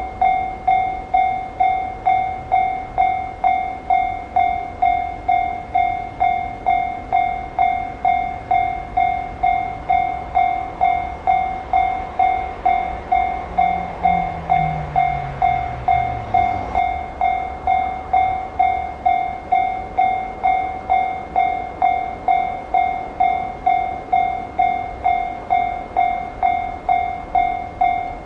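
Japanese railway level-crossing warning bell ringing steadily, about two evenly spaced strikes a second. Under it a train rumbles past, with a low falling tone about halfway through, and the rumble dies away a little over halfway through.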